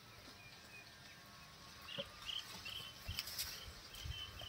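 Faint plucking of wet feathers from a scalded chicken carcass by hand, with a few soft thumps and tearing sounds. From about two seconds in, a bird chirps repeatedly in short high notes in the background.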